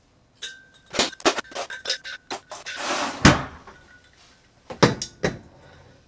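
Ice cubes clinking as they are dropped into a large glass mixing glass, a quick run of sharp clicks over the first few seconds. A single louder thud follows, then two knocks near the end as the glass is set down on the counter.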